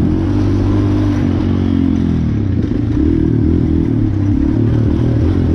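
Off-road racing machine's engine running hard, its pitch rising and falling over and over with the throttle.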